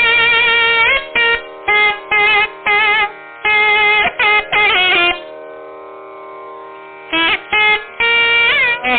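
Nadaswaram playing a Carnatic melody in raga Anandabhairavi, in short phrases with wavering, ornamented notes over a steady drone. About five seconds in, the melody breaks off for about two seconds, leaving only the drone, then resumes.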